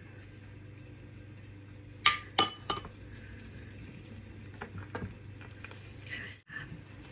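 A metal spoon clinking against glass, three quick ringing clinks about two seconds in, followed by a few soft sounds of gloved hands rubbing marinade into a raw chicken.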